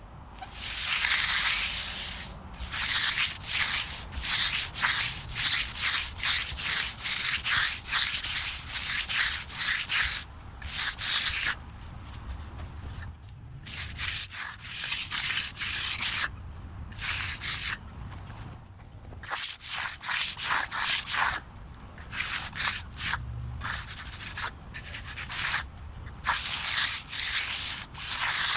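Push broom dragged across fresh concrete to give it a broom finish: a scratchy brushing in irregular repeated strokes, with short pauses between them.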